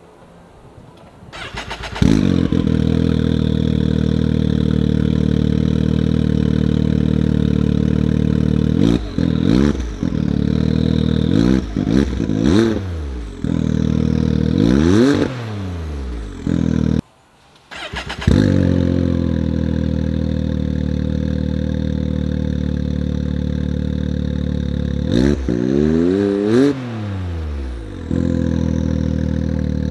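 Can-Am Maverick X3's turbocharged three-cylinder engine, fitted with a BMP Big Mo 3-inch full exhaust, cold-started and settling into a steady idle. It is then blipped in a run of quick revs that rise and fall back to idle. The sound breaks off for about a second halfway through, then the idle resumes with another run of rev blips near the end.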